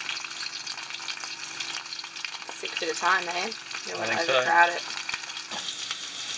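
Panko-crumbed oysters shallow-frying in hot oil: a steady sizzle with fine crackling throughout.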